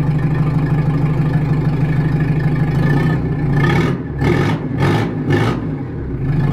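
Jeep XJ's 2.5 litre turbo-diesel engine idling, heard from inside the cab, running without its turbo or an exhaust, straight out of the manifold. A steady low hum, broken by a few short bursts of sound just past halfway.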